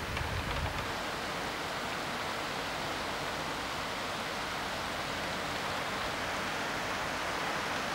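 Rain falling steadily: an even, unbroken hiss with no single drops standing out.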